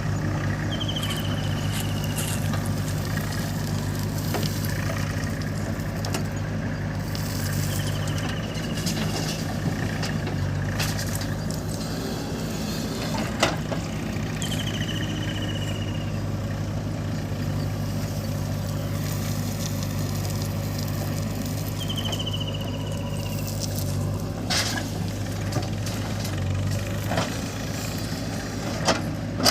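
A diesel engine of a backhoe or tractor running steadily at idle. A short, high, falling whistle repeats about every seven seconds, with a few sharp clicks.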